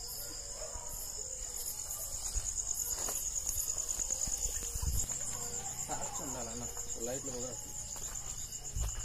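Crickets chirring in a steady, high, finely pulsing chorus. Around six to seven and a half seconds a faint, wavering call is heard under them, and there are a couple of low thumps, one near the end.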